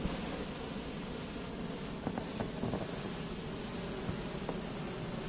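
Hot air balloon's propane burner firing, a steady rushing noise.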